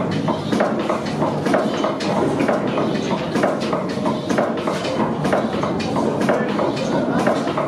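Belt-driven crusher running with its big flywheel spinning, giving a fast, steady clatter of knocks.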